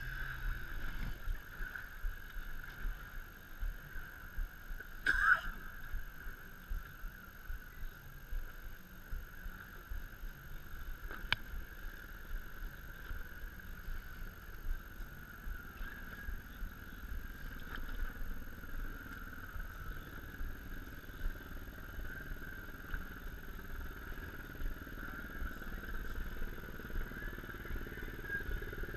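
Boat engine idling with a steady low rumble and a thin steady whine, and a couple of faint knocks along the way.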